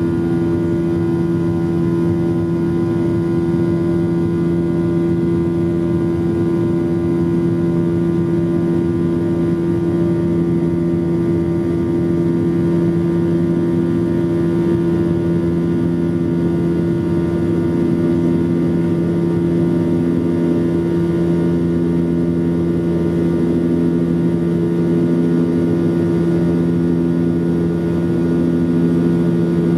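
Cabin noise of a passenger jet climbing after takeoff: a steady engine drone with a low hum over a rush of noise. One of its tones swells and fades about every two seconds.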